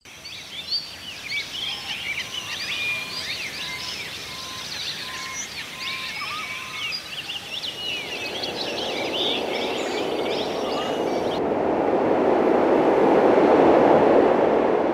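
A chorus of several songbirds, quick chirps and whistles overlapping. From about eight seconds in, a rushing noise swells up and grows loudest near the end. The birdsong cuts off abruptly a few seconds before the end.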